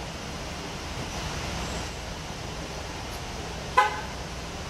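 Steady outdoor street ambience with one short, sharp horn toot about four seconds in.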